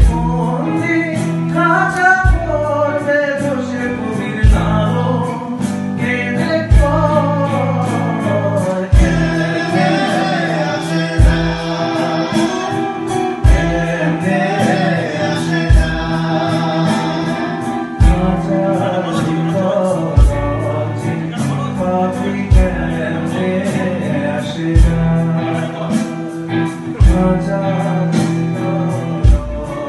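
Live band playing a Bengali song: a man sings over two electric guitars and drums, with a low drum hit landing about every two seconds.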